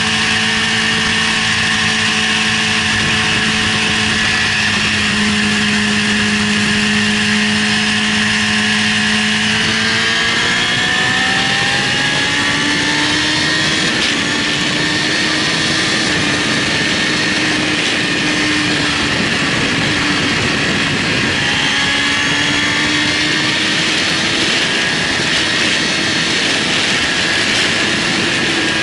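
BMW S1000RR inline-four engine at high revs under acceleration, heard from the rider's seat over heavy wind rush at well over 200 km/h. Its pitch rises at about ten seconds in and then holds steady.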